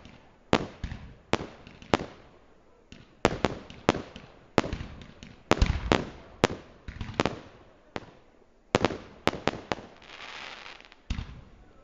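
Aerial fireworks shells bursting in an irregular string of about twenty sharp bangs, each trailing off in echo. A stretch of hissing crackle comes near the end.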